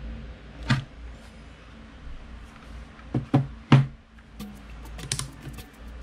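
Hard plastic knocks and clicks of a Hoover Linx lithium vacuum battery pack being pulled off its charger and set down on a table: one knock about a second in, three in quick succession around the middle, then lighter ticks near the end.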